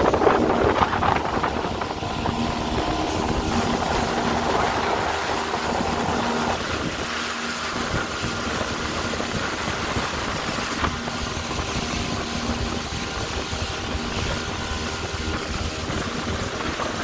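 Motorboat engine running steadily under way, with wind noise on the microphone.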